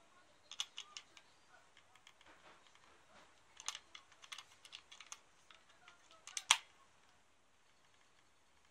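Small plastic clicks and taps from a YAZAWA MW01SV battery tester as a coin-type battery is pressed and shifted against its contacts: a few near one second in, a run around four to five seconds in, and the loudest single click about six and a half seconds in.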